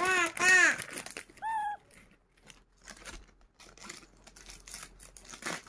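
Baby monkey giving two arched calls in a row, then a shorter, higher call about a second and a half in, followed by faint scratching and rustling of its hands on a fluffy blanket.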